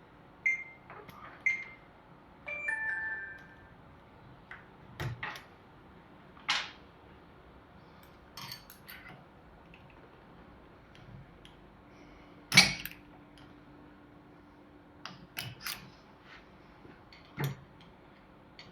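A small screwdriver or clip pick prying at a circlip inside a Yamaha TZR 250 rear shock body: scattered metal clicks and scrapes, with a few short ringing metallic pings in the first few seconds and one sharp click about twelve seconds in.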